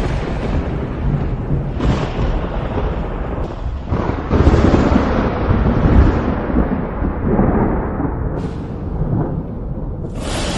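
Thunder rumbling continuously, with several sharper cracks and a louder swell about halfway through.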